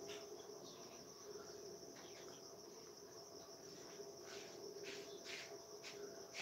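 Faint, steady high-pitched insect chirring, with a few soft rustles in the second half.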